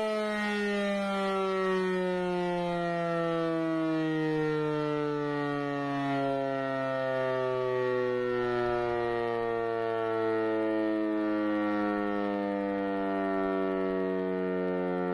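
E57 electromechanical civil-defence siren howling, its pitch sliding slowly and steadily downward as its rotor slows.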